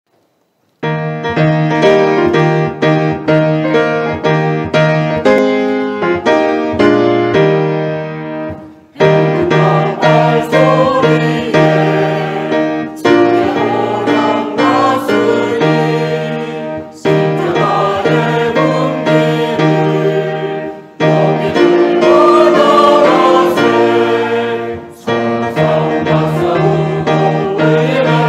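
Church choir anthem with piano accompaniment. The piano opens alone with short, repeated march-like chords, and the choir's voices join from about nine seconds in, singing in phrases with brief breaks between them.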